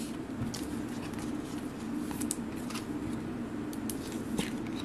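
A football trading card being slid into a clear plastic sleeve by hand: soft rustling of plastic and card with a few light clicks, over a steady low room hum.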